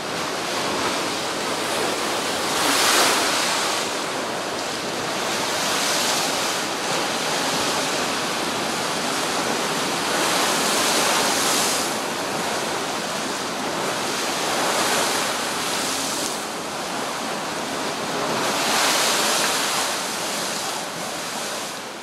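Heavy surf breaking over a seafront promenade in strong wind: a steady wash of rough sea, swelling into a louder crash five times as big waves break and sweep across the pavement. It fades near the end.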